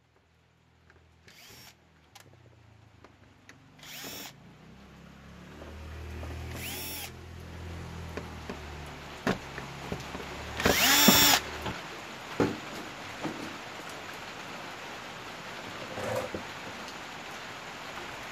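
Cordless drill-driver backing the screws out of an LED TV's plastic back cover in several short bursts, the motor whining up and then down each time. The longest and loudest burst comes about eleven seconds in, with a few clicks between bursts.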